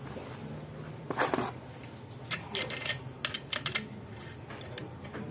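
Sharp metallic clicks and clinks of small engine parts being handled against a bare engine block and crankshaft, with one louder clattering rattle about a second in and a quick run of clicks after it.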